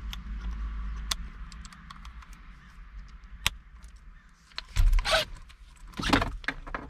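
Metal hand tools clicking and clinking while they are handled at the dash bolts, with a louder rattle and thump about five seconds in and another rattle about a second later.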